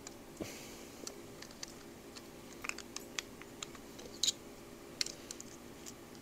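Light scattered metal clicks and taps of a screwdriver and piston-pin snap ring (circlip) against a Honda CB350F piston and its cylinder studs as the ring is worked toward its groove, over a faint steady hum.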